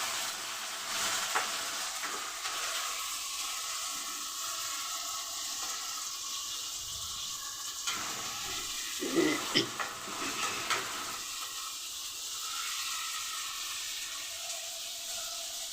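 Chopped tomato, onions and green chillies frying in oil in a pan, with a steady sizzle as a spoon stirs them. A few clattering knocks of the spoon against the pan come about nine to eleven seconds in.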